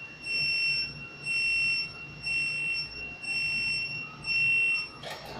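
Fire alarm sounding during a test of the fire detection system: a high-pitched electronic tone beeping in long pulses, about one a second, five times. A brief clatter of clicks comes near the end.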